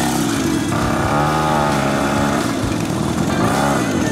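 Small engine of a mini pocket bike running and revving, its pitch rising and falling twice.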